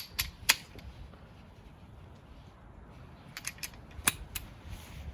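Sharp metallic clicks and clacks from a ratcheting torque wrench and socket being handled on the wheel nuts: three near the start, then a quick cluster of about five a few seconds in.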